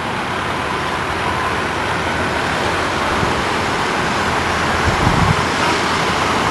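Steady hum of city road traffic, with a few low rumbles about five seconds in.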